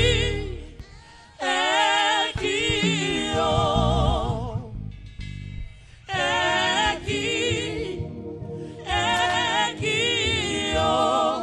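Live gospel singing into microphones: long sung phrases with heavy, wavering vibrato, broken by short pauses between lines.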